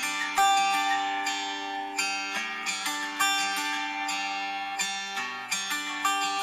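Background music: a plucked string instrument picking out a melody of quick, sharply struck notes over longer-held lower notes.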